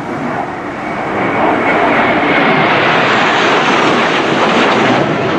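Jet aircraft flying past with a loud, steady roar that swells about a second and a half in.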